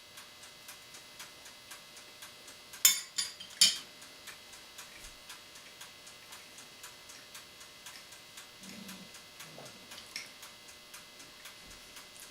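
Steady mechanical ticking, about four ticks a second, with two loud sharp clatters about three seconds in.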